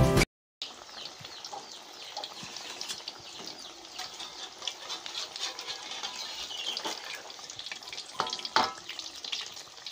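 Battered tempeh deep-frying in hot oil: a steady sizzle with many small pops, and a few louder knocks near the end.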